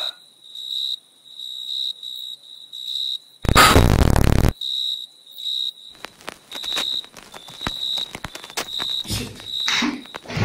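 A high chirping pulse, about three a second, runs throughout. A loud burst of static hiss lasts about a second from three and a half seconds in. Crackling static clicks follow as the laptop screen fills with static, and a falling whoosh comes near the end.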